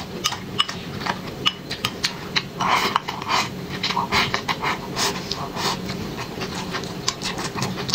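Close-up eating sounds: wet chewing and mouth smacking with many short sharp clicks of chopsticks against a glass bowl, and a longer noisy slurp as food is drawn in about three seconds in.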